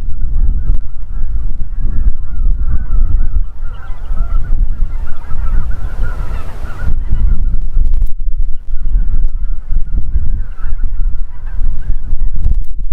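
A flock of geese flying over and honking, many calls overlapping, thickest around the middle. Underneath runs a loud, steady low rumble.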